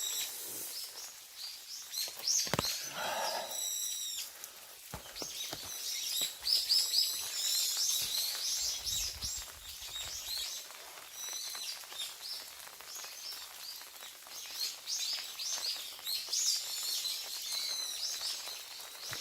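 Several small birds chirping and calling in a forest, with many short high chirps overlapping throughout.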